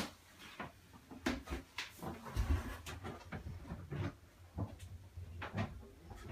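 Irregular knocks and clicks with a few dull low thumps, the sound of handling and moving about inside a small yacht cabin.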